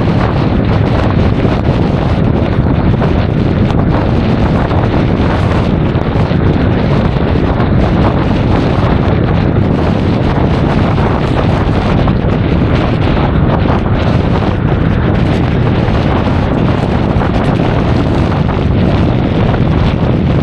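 Steady wind noise buffeting an action camera's microphone while riding a Honda Forza 350 scooter, a loud rushing roar heaviest in the low end that covers any engine sound.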